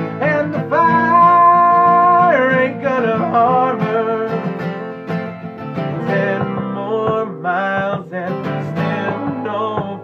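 Acoustic guitar playing a country-folk tune between sung lines, with a long held note near the start.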